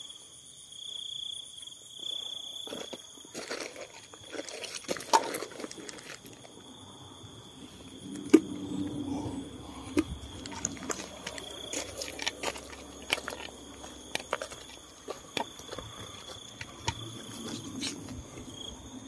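Steady high chirping of night insects, with rustling and scattered clicks and knocks as hands handle plastic bottles and fishing gear on the ground. The sharpest click comes about eight seconds in.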